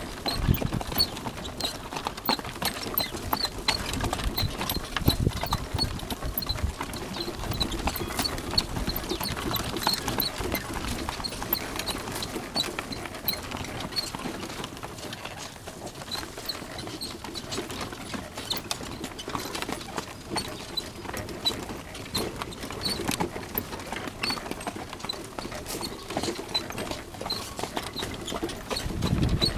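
A horse's hooves clopping on a dirt track as it pulls a cart, with many small irregular clicks and knocks from the moving cart.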